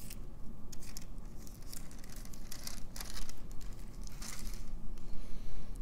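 Thin clear plastic film crinkling and rustling as it is peeled off a clay sheet mask by hand, in irregular crackles with two louder bursts, one around the middle and one near the end.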